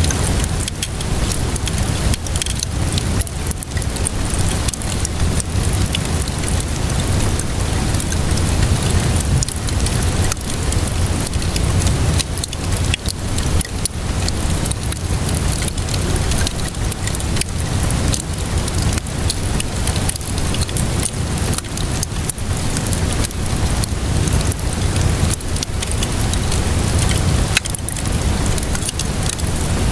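Steady rainfall mixed with a crackling wood fire: a constant hiss of rain with many small, sharp crackling pops scattered through it, over a continuous deep low rumble.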